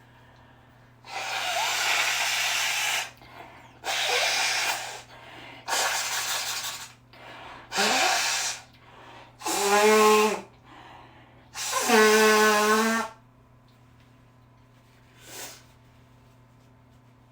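A person with a head cold blowing a congested nose hard six times in a row, each blow a second or two long. The last two are honky, with a wavering pitched tone, and a brief faint one follows near the end.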